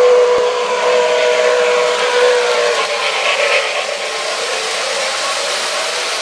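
O gauge model steam locomotive's whistle sounding a steady chord that cuts off just under three seconds in, followed by the steady rolling noise of a model train's wheels running on metal three-rail track.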